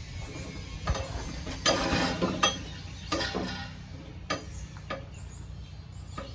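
Scattered metallic knocks and clanks from handling parts and tools on a tiller, with a denser rattling clatter about two seconds in, over a low steady rumble.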